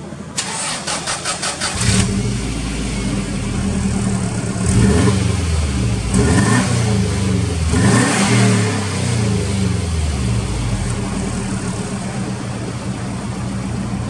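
A Subaru Impreza WRX STi Version IV's turbocharged 2.0-litre flat-four, heard at the exhaust tip. The starter cranks for about a second and a half and the engine catches. It is then revved up and back down three times and settles to a steady idle.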